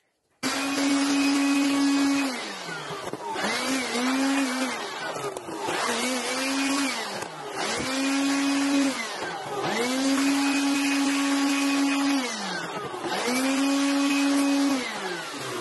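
Electric heat gun running: its fan motor gives a steady whine over a rush of air, and it is switched off and on again about five times, the pitch sinking as it spins down and climbing back as it restarts.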